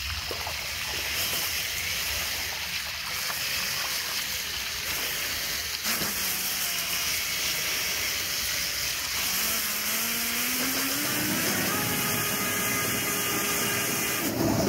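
3D-printed M-Jet 30 RC jet pump running at the water surface: a steady hiss and splash of its water jet over the whine of its electric drive motor. About ten seconds in, the motor whine rises in pitch and then holds as the pump speeds up and the jet grows stronger.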